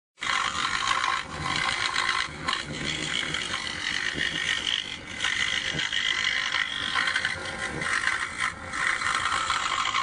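A power woodworking tool running and cutting wood: a loud, rough, continuous noise that wavers in level throughout.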